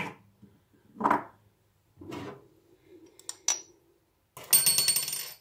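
Kitchen handling sounds: a metal spoon clinks sharply against a glass bowl at the very start, then a few soft knocks and taps. Near the end comes a louder scraping rattle lasting about a second.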